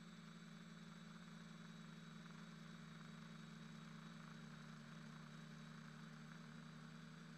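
Faint, steady low hum with a light hiss that holds the same pitch throughout.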